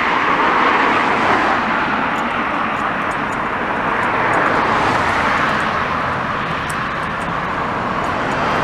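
Road traffic passing close by: a steady rush of tyre and engine noise from cars on the road.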